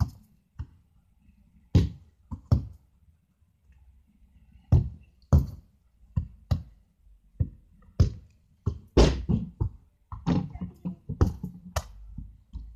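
A football being kicked and thudding off the ground and goal: a run of sharp thumps and knocks at irregular intervals, coming thicker in the second half.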